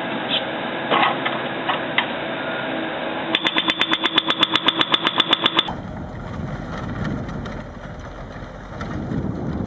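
Heavy machinery engine running with sharp clanks and knocks. About three seconds in, a rapid high beeping starts, about eight beeps a second for a little over two seconds, and then stops abruptly. A lower, rumbling engine noise with wind-like hiss follows.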